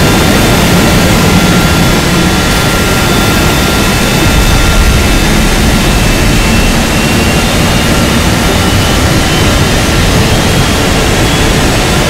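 Loud, steady rushing blast of a flamethrower-style jet of flame shooting from a hair dryer, a fire sound effect, with a few faint steady whining tones on top.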